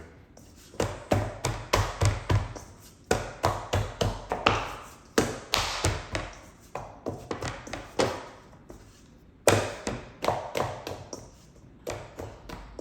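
Pie dough being kneaded by hand on a board: repeated knocks and thumps as the dough is pressed and pushed down, coming in runs of several strikes with short pauses between.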